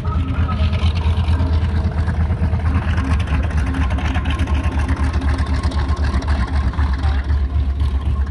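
Piston aircraft engine running steadily at low power, a low, evenly pulsing drone.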